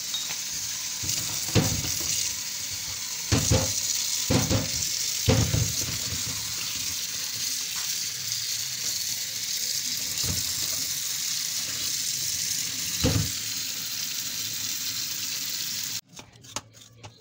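Tap water running steadily onto potatoes in a plastic colander, with a few dull thumps as the potatoes are rubbed and turned by hand. The water sound cuts off suddenly about a second before the end.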